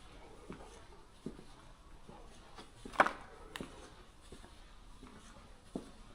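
Footsteps at an unhurried walking pace, with one much louder, sharper step or knock about three seconds in.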